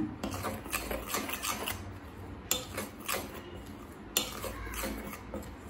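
Metal spoon stirring dry gram-flour mix in a glass bowl, scraping through the powder and clinking against the glass in an irregular run of small clicks. Two sharper clinks stand out, about two and a half and four seconds in.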